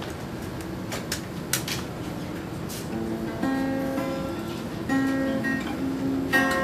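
Hollow-body archtop guitar played by hand. A few short scratchy strokes on the strings, then from about three seconds in, plucked notes and chords ring out.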